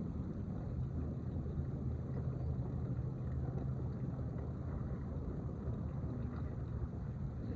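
A motor running steadily with a low hum, with wind noise on the microphone.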